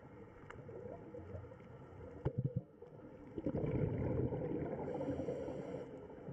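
Muffled underwater ambience: a steady low rumble of water against the camera, with a few knocks a little over two seconds in and a brief higher hiss near the end.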